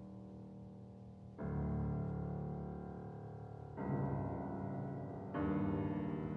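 Solo piano playing slow, sustained chords: a chord ringing on at the start, then new chords struck about one and a half seconds in, near four seconds and about five and a half seconds in, each left to ring.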